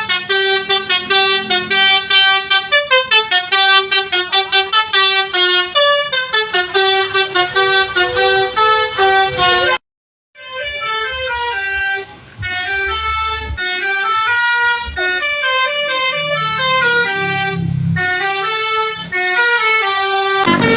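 Indonesian tour bus 'basuri' telolet horn playing a melody in quick stepping notes. After a brief break partway through, a horn tune plays again with a low engine rumble beneath it.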